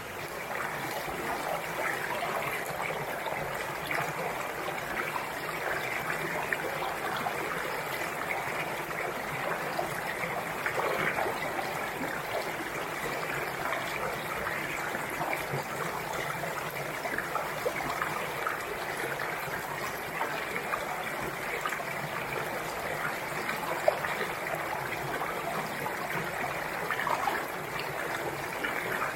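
Mountain valley stream running over rocks: a steady rush of water with fine splashing and trickling, and one brief sharp click late on.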